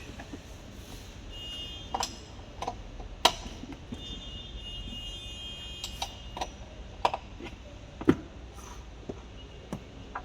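Scattered sharp clicks and taps, about one a second, of tools and car parts being handled during a repair.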